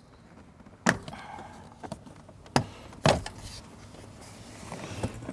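Four sharp clicks and knocks of plastic trim as the lower dash airbag assembly is worked loose from its clips, the first about a second in and the last near the end.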